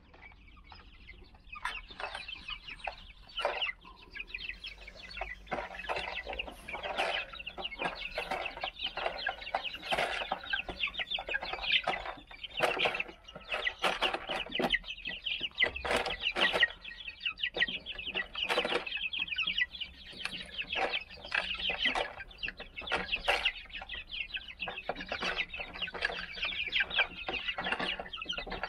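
A flock of 39-day-old Silver Laced Wyandotte chicks calling continuously, many short high-pitched calls overlapping, starting about a second and a half in.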